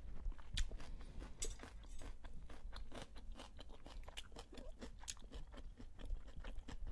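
Chewing a bite of fried khinkali: a steady run of small crunches and wet mouth clicks.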